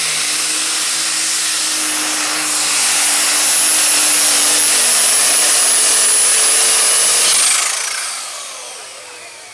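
Heavy super stock pulling tractor, a New Holland 8260, running flat out under load on its turbocharged diesel, with a steady high-pitched turbo whine over the engine. About seven seconds in the engine throttles back at the end of the pull and the whine falls in pitch as it winds down.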